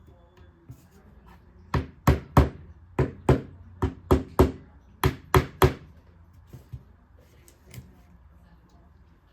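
A hammer tapping dowels into pre-drilled holes in a closet panel: about eleven sharp knocks in quick groups of two or three, followed by a few light taps near the end.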